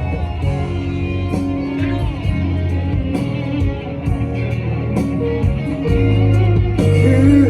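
Instrumental break in a pop ballad: guitar over sustained bass notes, with regular drum hits.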